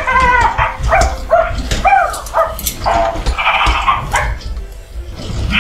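furReal Walkalots Big Wags toy pup's electronic sound effects: a quick run of recorded puppy barks and yips from its speaker, with a short noisy sound about three and a half seconds in. Clicking throughout.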